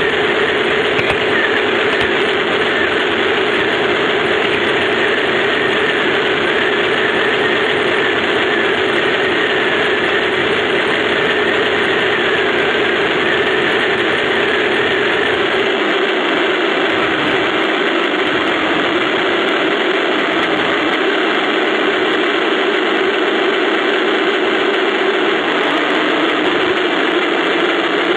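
1:16 radio-controlled Tiger I model tank running, heard from a camera on its own hull: a loud, steady mechanical running noise, with a faint wavering whine through roughly the first half.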